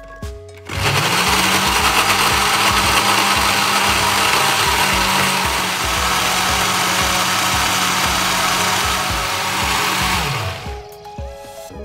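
Countertop blender motor blending oats and water into a batter: it spins up about a second in, runs steadily for about ten seconds with a grinding churn, then winds down near the end.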